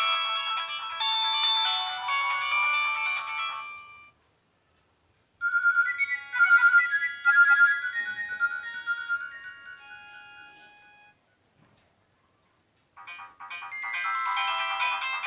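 Nokia mobile phone ringtones playing one after another. One melody fades out in the first four seconds, and a second plays from about five seconds in and dies away. A third, busier tune of rapid notes starts near the end, with short silences between them.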